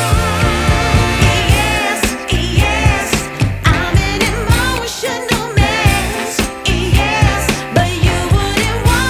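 Background music: a song with a wavering, ornamented vocal line over a steady beat and bass.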